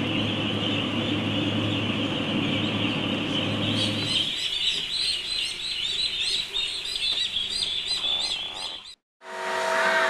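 Massed peeping of a large flock of ducklings over a steady low hum, giving way about four seconds in to a run of high, clearly separate duckling peeps. After a short break near the end, a steady machine hum of several pitches.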